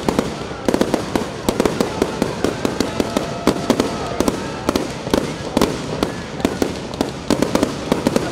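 Aerial fireworks shells bursting overhead: a dense, irregular run of sharp bangs and crackles, several a second, with no pause.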